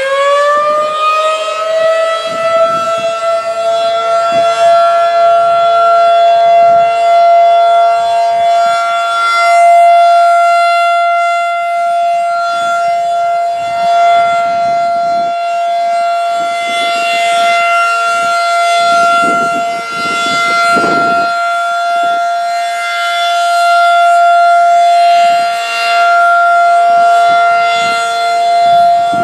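Federal Signal 2001-SRN outdoor warning siren sounding its steady alert signal for a monthly test. It finishes winding up to full pitch in the first second or two, then holds one steady wail that swells and fades slightly in loudness.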